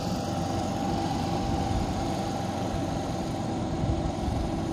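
Small engine of a walk-behind wicket machine running steadily at an even pitch, heard from a distance.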